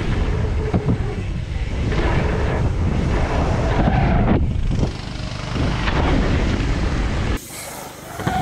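Wind buffeting the helmet-camera microphone of a mountain bike ridden fast toward a jump: a loud, steady rumble that drops off suddenly near the end, followed by a short knock.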